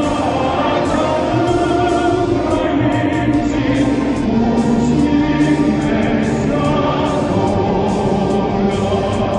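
Many voices singing together in unison over a regular beat of about two strikes a second.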